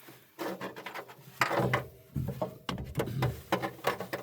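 Irregular clicks, knocks and rattles of hands handling tools and small metal parts, as when rummaging for a nut, with rustling between the knocks.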